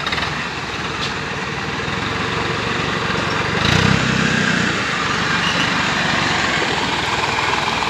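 Diesel engine of heavy farm machinery running steadily, growing louder and deeper for about a second around four seconds in before settling again.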